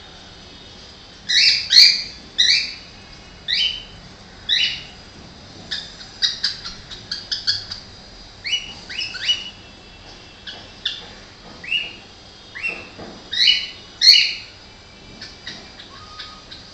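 Cockatiel chattering: a string of short, rising chirps and whistles, with quick runs of clicking babble in between.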